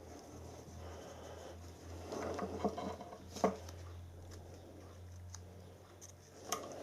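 Small hand-handling sounds at a workbench while epoxy glue is applied to a broken die-cast part: light rubbing and scraping about two seconds in, then a single sharp tap, over a low steady hum.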